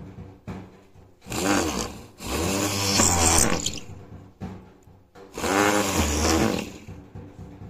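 Homemade drill built from a 775 DC motor drilling into a wooden plank. It runs at a steady hum, with three louder bursts as the bit bores into the wood, its pitch wavering under the load.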